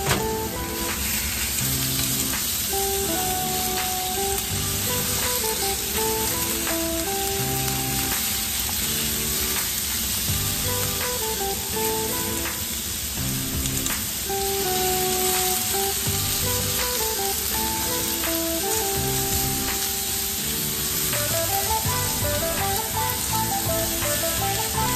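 Sliced pork sizzling steadily as it stir-fries in a nonstick frying pan, turned over with wooden chopsticks. Background music with a simple melody plays over the sizzle.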